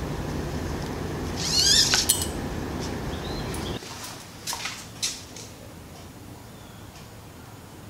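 A bird chirps a quick run of high, warbling notes over a steady low hum. The background then drops abruptly to a quieter level, and two light clicks follow, as of bicycle parts being handled.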